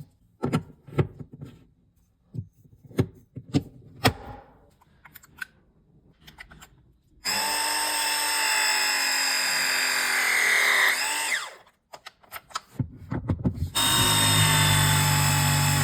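Handling clicks and knocks of copper pipe and fittings, then a battery-powered press tool running twice. It crimps press-fit copper fittings: a steady motor whine of about four seconds that ends with a quick sweep in pitch, a few clicks, and then a second run starting near the end.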